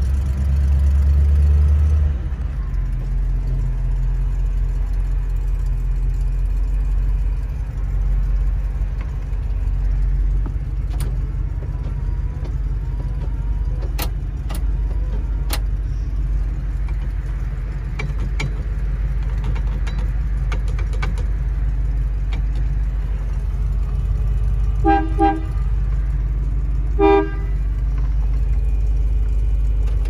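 Ford 302 V8 in a 1956 Fairlane restomod, idling steadily just after start-up, a little higher for the first two seconds before settling. A few sharp clicks come in the middle, and the car horn gives two short toots near the end.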